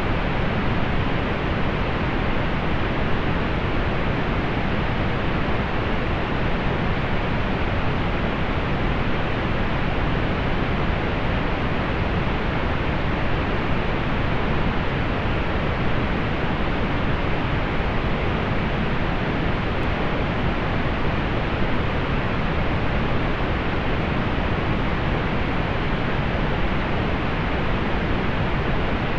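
Steady synthetic pink noise: an even, unchanging hiss weighted toward the low end, softening off in the highs.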